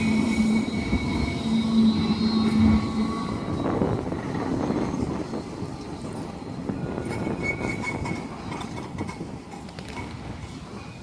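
Alstom Citadis X05 light-rail tram on the move: a rumble with a steady hum and thin high tones over it, growing fainter through the last several seconds as it draws away.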